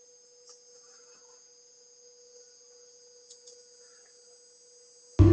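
A faint steady hum with a few soft clicks. Right at the end, loud music from the played video starts suddenly.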